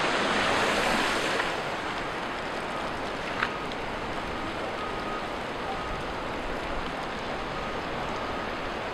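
Hurricane wind and rain rushing steadily, a little stronger in the first second and a half. A single sharp click sounds about three and a half seconds in.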